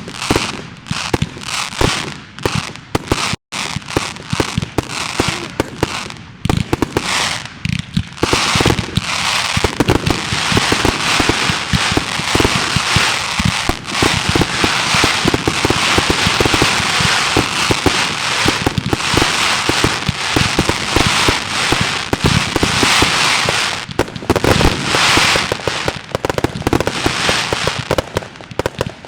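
Aerial fireworks going off in quick succession: dense cracks, bangs and crackling that build to a near-continuous barrage from about ten seconds in, easing a little near the end.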